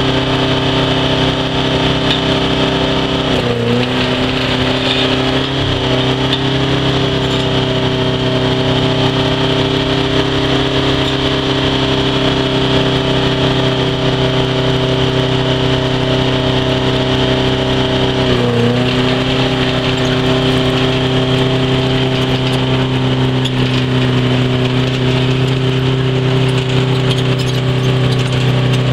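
Engine of a crawler-mounted trenching machine running steadily while it digs, its note dipping briefly about three and a half seconds in and again about eighteen seconds in before settling back.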